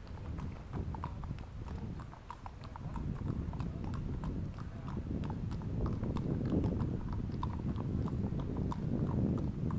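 Horses walking on concrete: an irregular clip-clop of hoof strikes from several horses, a few each second, over a low steady background rumble.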